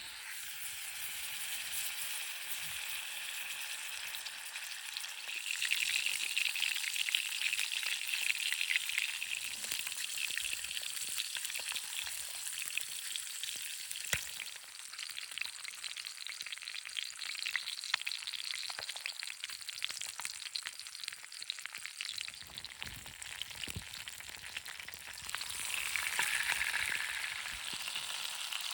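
Food frying in a pan over a campfire: a steady sizzle full of fine crackles. It swells louder a few seconds in and again near the end.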